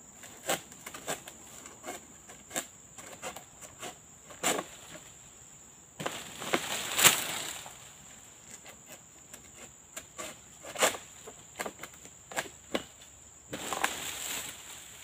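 Sharp, irregular knocks of a long-handled harvesting pole chopping into the frond bases of a low oil palm. There is a longer rustling crash about seven seconds in as cut material drops through the leaves, and another rustle near the end. A steady high insect drone runs underneath.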